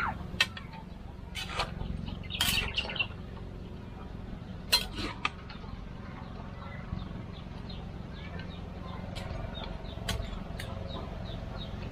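A spoon clinks and knocks against a metal cooking pot now and then as a stew is stirred, over a steady low rumble. Birds chirp in the background, with a quick run of short chirps near the end.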